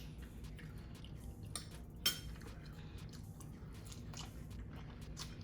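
A person chewing food close to the microphone, with soft mouth and eating sounds and scattered faint clicks, and one sharp click about two seconds in.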